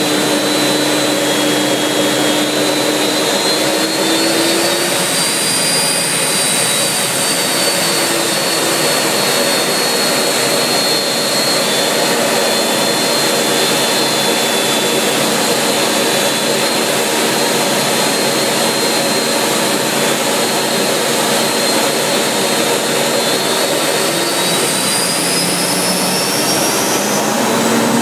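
BAC Strikemaster's Viper turbojet running, heard from inside the cockpit: a steady rushing noise with a high whine that rises in pitch a few seconds in and again near the end as the engine spools up.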